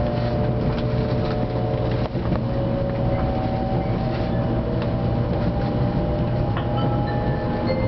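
Shinkansen train running, heard from inside the car: a steady low rumble with a whine that slowly rises in pitch, and a few light clicks.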